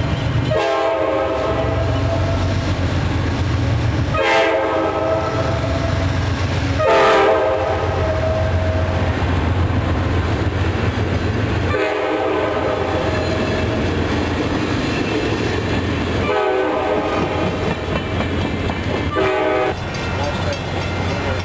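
Amtrak diesel passenger train rolling by, its chord horn sounding about six long blasts with short gaps over the steady low rumble of the locomotive and passing cars.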